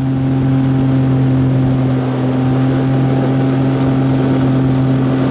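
Jet boat under way at a steady speed: its engine keeps up a constant drone over the rush of water and air past the boat.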